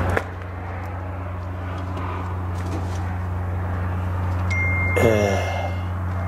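Steady low hum of an idling vehicle engine. About five seconds in there is a short falling sound, and a thin steady high tone starts just before it.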